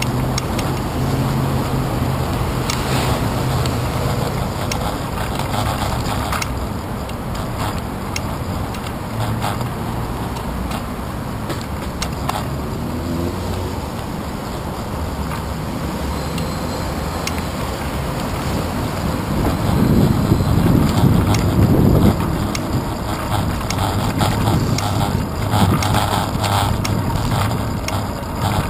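Wind rushing over the microphone of a handlebar-mounted camera and road rumble from a bicycle rolling through city traffic, with motor vehicles running nearby. The noise swells for a few seconds about two-thirds of the way through.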